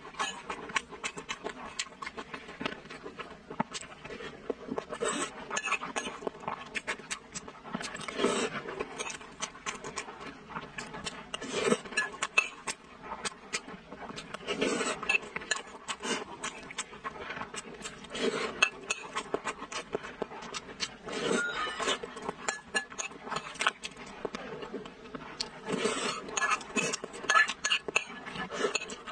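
A person chewing and smacking their lips over a mouthful of fat intestine and rice, close to the microphone. Many small wet clicks run on, with a louder bout of chewing every few seconds.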